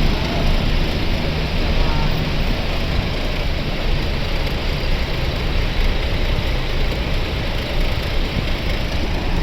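Steady road traffic noise with a large vehicle's engine rumbling, with no horn sounding.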